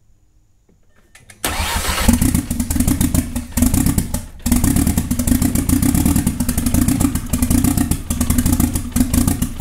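Car's four-cylinder engine starting about a second and a half in, on its first start after sitting for years, then running on with a brief dip about four and a half seconds in. It runs rough, with no intake piping fitted.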